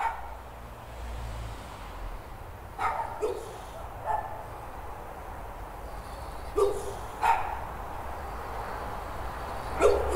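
A dog barking, about seven short single barks spaced a second or more apart, two of them in quick pairs, over a low steady background rumble.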